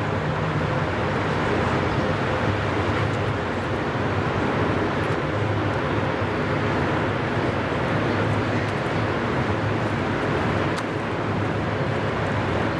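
Freight train of open coal wagons hauled by a Rail Polonia diesel locomotive rolling past, a steady running noise of wheels on rail with a low hum that swells and fades every few seconds.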